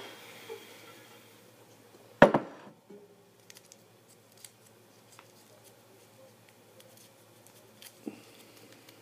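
A container of folded paper number slips being handled: one sharp knock about two seconds in, then faint scattered clicks and paper rustles.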